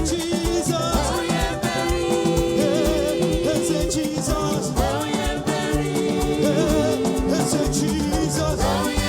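Upbeat live gospel band music: drums and bass keep a steady dance beat under sustained keyboard chords, with a melody line bending in pitch above them.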